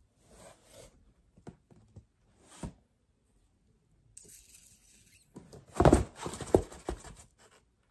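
A cardboard shipping box being handled and shaken. Faint rustling comes first, then a cluster of loud knocks and thumps a little past the middle as the box is shaken and its contents knock inside.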